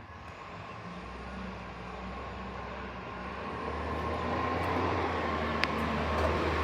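Garbage truck's engine running as it approaches, a low drone growing steadily louder.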